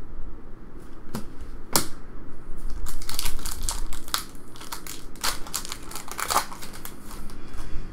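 Trading-card pack wrapper being torn and crumpled by hand. A couple of sharp crackles come first, then a dense run of crinkling for about three seconds.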